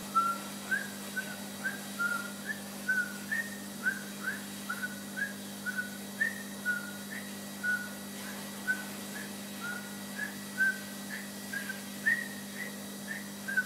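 Someone whistling a string of short, chirpy notes, about two a second, several sliding upward, over a steady low hum.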